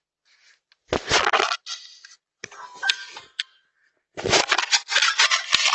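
A Ring video doorbell being wiped dry, the rubbing and scraping right against the doorbell's own microphone, in four bursts of noise.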